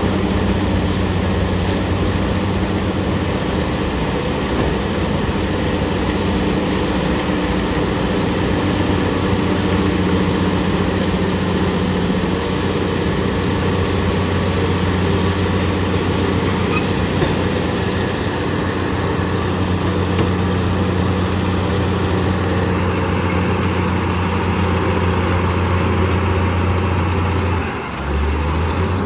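BEML BD355 crawler bulldozer's diesel engine running steadily and loudly. Its note dips briefly and shifts pitch near the end.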